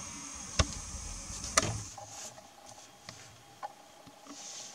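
Quiet handling noises: two sharp clicks about a second apart in the first half, over a low rumble, then faint ticks and a thin steady hum.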